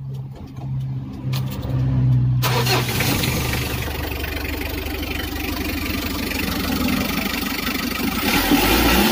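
Mitsubishi L300 diesel engine being started: the starter cranks for about two seconds, then the engine catches about two and a half seconds in and keeps running, getting louder near the end. It is a test start just after the injection pump was adjusted.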